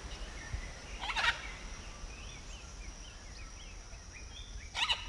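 Forest bird ambience: many small birds chirp faintly over a steady high thin tone. Two loud, harsh bird calls stand out, one about a second in and one near the end.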